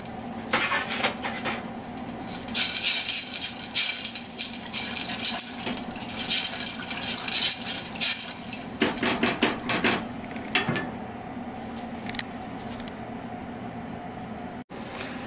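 A whisk clinking and scraping against a small ramekin while cornstarch and cold water are mixed, then stirring the sauce in a stainless steel pot. The strokes come in several short bursts of rapid strokes, with a steady hum underneath.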